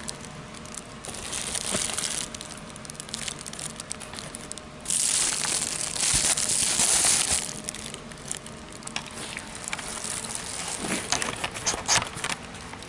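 Clear plastic candy bags crinkling and rustling as they are handled right against the microphone, loudest for a couple of seconds about five seconds in, with a few sharp crackles near the end.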